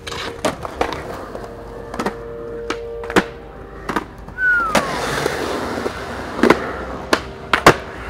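Skateboards on concrete: urethane wheels rolling, with about nine sharp clacks and pops of boards striking the ground, and a short falling squeal about halfway through.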